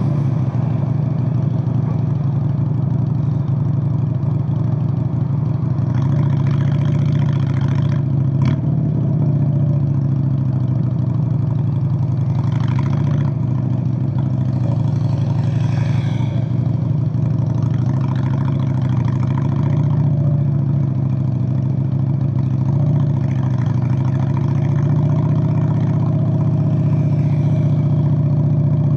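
Straight-piped Honda Steed VLX 600 (Shadow 600) V-twin running steadily, its deep exhaust note holding at a near-constant pitch with only slight swells. A single sharp click about eight seconds in.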